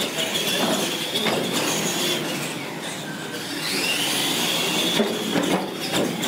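Two radio-controlled monster trucks racing on a concrete floor: a high whine from their electric motors and gears that dips and then climbs again as the throttle changes, over tyre noise, with a few knocks.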